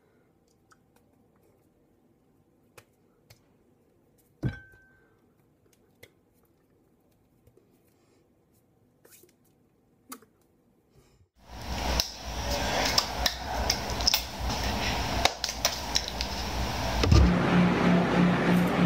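Near silence for most of the first eleven seconds, broken by a few faint clicks and one thump about four and a half seconds in. Then a loud, dense noise full of clicks starts abruptly. About seventeen seconds in, a low pulsing tone joins it.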